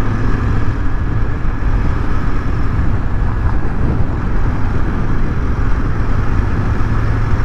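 Royal Enfield Interceptor 650's 648 cc parallel-twin engine running steadily at cruising speed, heard from the rider's seat as a steady low hum under a constant rush of wind and road noise.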